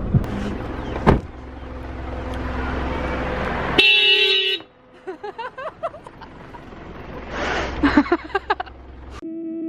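Steady low vehicle rumble, then a short horn toot about four seconds in; music starts near the end.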